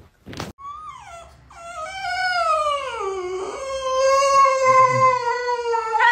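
A French bulldog howling: one long howl that slides down in pitch over its first couple of seconds, then holds steady.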